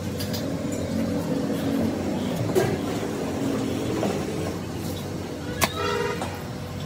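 Steady traffic rumble, with light clinks of lead-acid battery plate packs being handled and set into an empty plastic battery case. About two thirds of the way through comes one sharp metallic clink with a brief ring.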